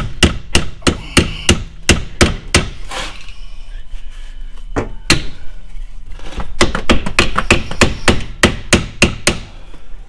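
Hammer striking a hub assembly mounting bolt upward to drive it through, metal on metal. Quick blows about three a second, a pause with a single strike around the middle, then another fast run of blows.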